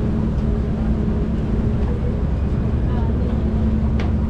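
Steady low drone of a ferry's engines, with an even hum, and a single sharp click near the end.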